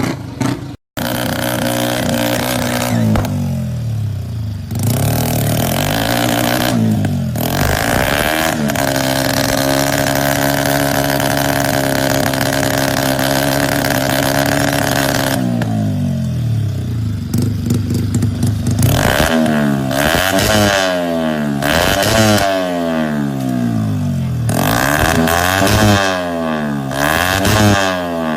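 Tuned drag-racing motorcycle engine revving hard. Pitch rises and falls a few times, then holds a long high rev, then ends in quick repeated throttle blips.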